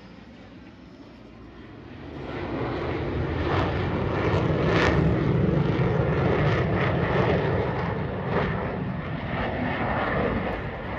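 F-15C Eagle fighter jet's twin turbofan engines making a broad jet noise as it flies past. The noise is faint at first, swells to loud about two to four seconds in, holds there, and eases off near the end.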